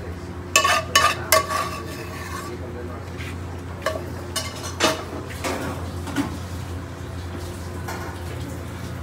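Metal spoon scraping and knocking against a stainless steel frying pan as sauce is scraped out onto a plate. There are three sharp ringing clinks about half a second to a second and a half in, and a few more knocks around four to five seconds, over a steady low hum.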